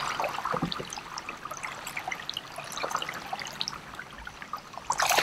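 Water splashing and trickling as a hooked fish thrashes at the surface beside a kayak. Near the end comes a short, louder splash as the angler's hand goes into the water to land it.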